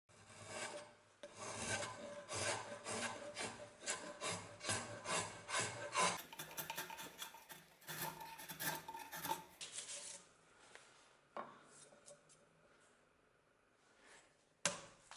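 A Peugeot Frères drawknife shaving very dry, hard wood from a branch held in a vise: a quick series of short scraping strokes, about two a second, that thin out after about ten seconds. Two sharp knocks follow near the end.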